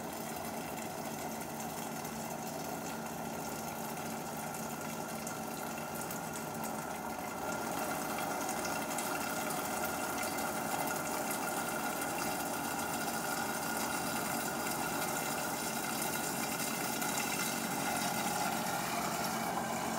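Countertop blender running steadily on low speed, a little louder from about seven seconds in, while melted butter is drizzled in to emulsify hollandaise sauce.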